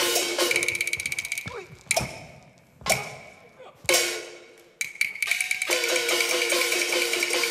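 Cantonese opera percussion ensemble beating out a stage fight: rapid wood-block and gong strokes, then three loud single crashes about a second apart with near quiet between them. About five seconds in, the fast percussion starts again along with a steady melody line.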